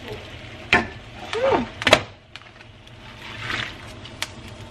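Glass pot lid clinking as it is lifted off a pan of boiling water, with sharp clicks and a short pitched squeak. Then bok choy is tipped from a plastic colander into the boiling water with a soft splash, over a steady low hum.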